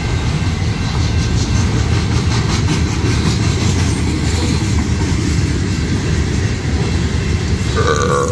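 Freight cars of a Union Pacific manifest train (autoracks, covered hoppers and tank cars) rolling past in a steady rumble, with wheels clicking rhythmically over the rails. A brief ringing squeal sounds near the end.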